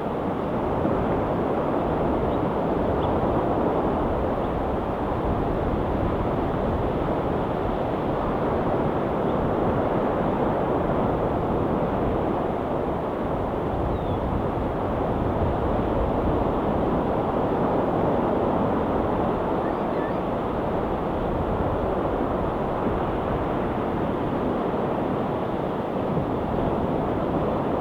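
Ocean surf washing in continuously, a steady rushing noise that swells and eases only slightly.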